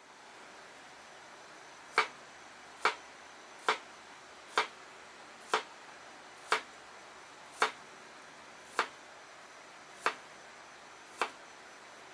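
A series of ten sharp clicks or knocks, about one a second and slowly spacing out, over a faint steady hiss.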